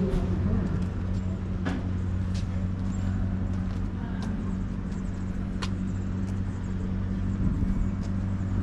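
A steady, unchanging low mechanical hum, with a few faint clicks.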